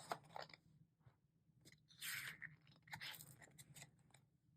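Faint paper rustles as the pages of an album photo book are handled and turned, in a few short brushes about two and three seconds in.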